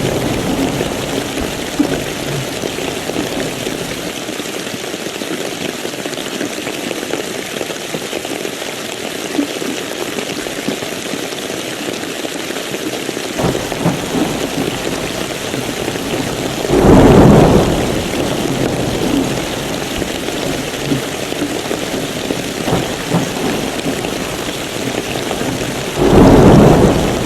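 Steady rain falling, with two loud rolls of thunder, one about seventeen seconds in and one near the end.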